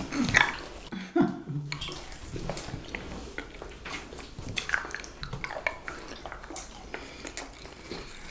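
Table eating sounds: irregular light clicks and clinks of utensils against dishes, with some chewing.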